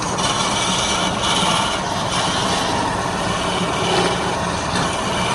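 Wood lathe running with a steady motor hum, and a hiss of something rubbing against the spinning wood that swells and fades every second or so.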